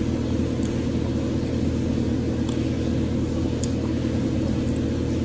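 Steady hum of a running electrical appliance, several low tones held unchanged, with a couple of faint clicks over it.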